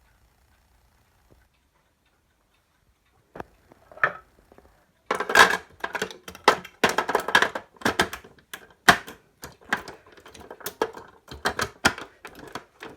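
Olympia Monica de Luxe manual typewriter being typed on: a couple of single key clacks, then from about five seconds in a quick, uneven run of sharp clacks, several a second.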